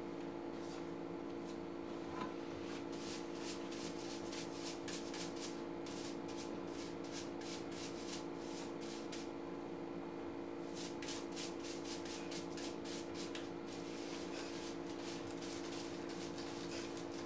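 Hand sanding or rasping of a small wooden figure: quick, repeated scratchy strokes in two runs with a short pause between, over a steady hum.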